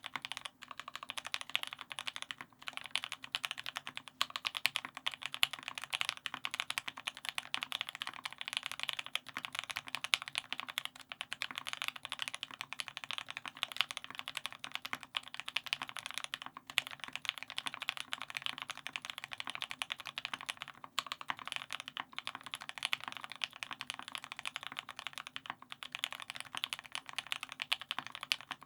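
Steady fast typing on a custom mechanical keyboard with an aluminium plate, Krytox 205g0-lubed Tealios V2 linear switches fitted with Cherry black top housings, and GMK keycaps: a dense run of keystroke clacks with a few brief pauses.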